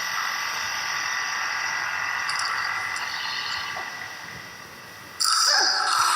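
A recording of a sleeping child's obstructed breathing played through the hall speakers: a long, rasping, hissing breath that fades, then a louder breath starting suddenly about five seconds in. The sound is a sign of a narrowed, obstructed airway.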